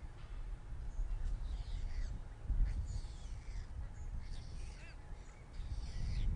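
Harsh bird calls, about four in a row, roughly a second and a half apart, over a low rumble that is loudest about two and a half seconds in.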